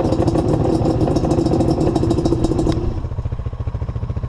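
ATV engines idling with a steady low pulse. A louder engine sound stops abruptly about two-thirds of the way in, leaving only the low idle.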